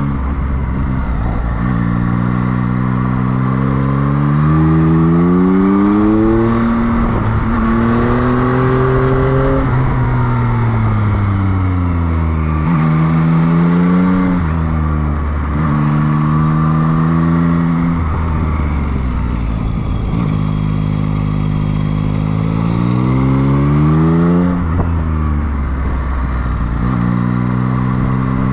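Motorcycle engine heard from on the bike, its revs rising and falling again and again. It climbs in pitch through the gears with a sudden drop at each shift, and falls away as the bike slows, over a steady rush of wind.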